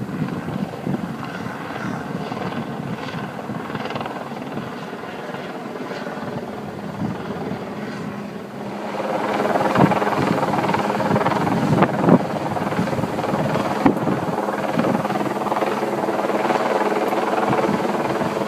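News helicopter's rotor and engine running overhead as a steady drone, growing louder about nine seconds in.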